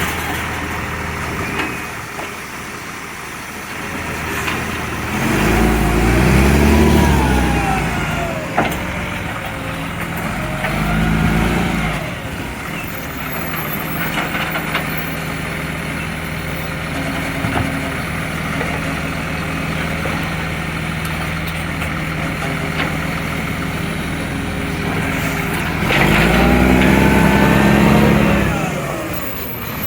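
Recycling truck's diesel engine with an exhaust leak, idling and revving up and back down three times: about five seconds in, around eleven seconds, and near the end.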